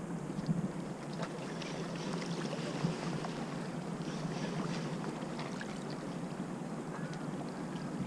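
Faint wash of calm sea water against a rocky shore, a soft even hiss with a few light ticks.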